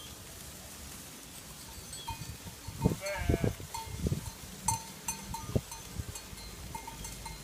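A flock of sheep grazing; one sheep bleats once about three seconds in. Small bells clink repeatedly throughout, with a few low thumps in the middle.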